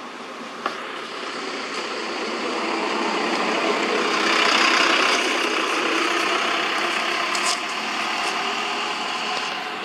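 Engine noise of a passing motor vehicle, swelling to its loudest about halfway through and then fading. A couple of short clicks sound over it, about a second in and near the end.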